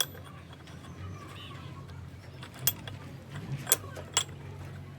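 Metal tools and parts clinking against metal, about four sharp ringing clinks with the loudest near the end, over a steady low hum.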